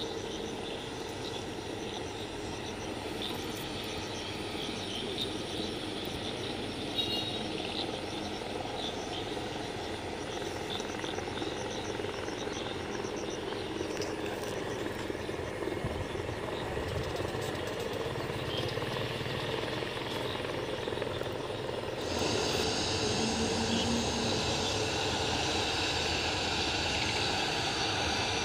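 Jet engines of an Airbus A321 airliner running steadily as it moves along the runway for takeoff. The noise grows louder and brighter about three-quarters of the way through.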